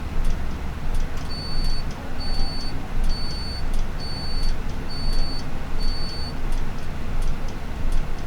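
Six short high-pitched electronic beeps, evenly spaced about three-quarters of a second apart, over a steady low rumble, with a clock ticking throughout.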